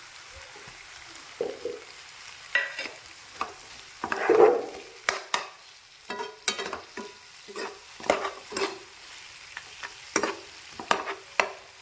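Food frying in a pan with a low sizzle, while a spatula stirs it, scraping and knocking against the pan in irregular strokes, the loudest scrape about four seconds in.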